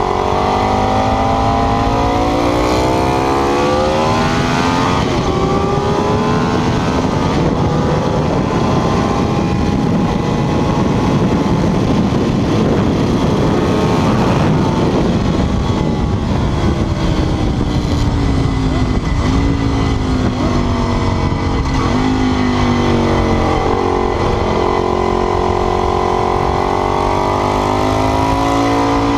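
Ducati 848's L-twin engine pulling hard through the gears on track. The pitch climbs, then holds high under a rushing noise, then falls with short rev blips as it downshifts, and climbs again near the end.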